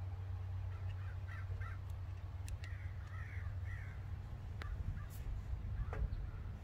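Crows cawing several times, harsh repeated calls mostly in the first half, with a few sharp clicks from hands working the fuel line fittings on the injection pump, over a steady low rumble.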